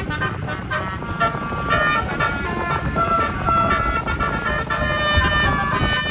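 Indonesian bus 'telolet' horn, a set of many air-horn trumpets (up to 36 notes), playing a quick tune of short, changing notes over a low rumble.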